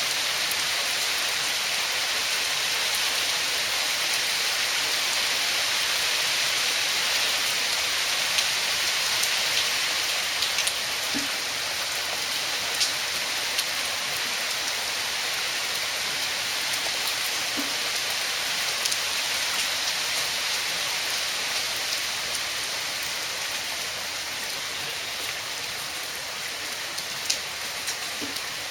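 Heavy rain falling steadily: a dense, even hiss of rain with scattered sharper drip ticks.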